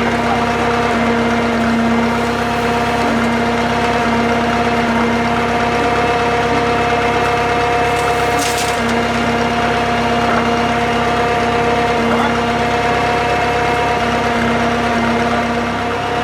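The Drott 85RM2 crane's engine running at a steady speed. A short hiss comes in about eight seconds in.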